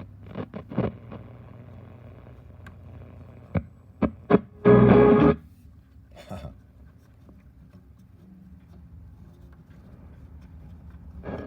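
Vintage RCA tube radio's speaker giving distorted snatches of broadcast sound and static crackles as it is tuned and its controls are worked. About five seconds in comes a loud burst of noise with a steady tone through it, the loudest thing heard. A low hum runs under it all.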